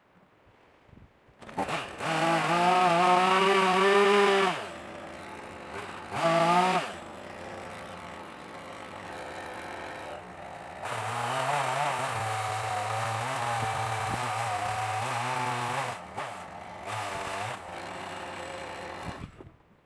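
Small two-stroke chainsaw starting, revving high, then idling with a brief rev. About eleven seconds in it drops in pitch and works under load for some five seconds as it cuts into the old wooden pergola and vine, then idles, revs briefly a couple of times and shuts off just before the end.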